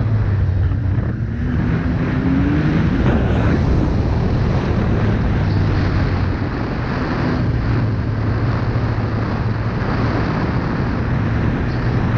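Arctic Cat snowmobile engine running under way along a packed snow trail. It climbs in pitch between about one and three seconds in, then holds a steady drone under a constant rush of wind on the microphone.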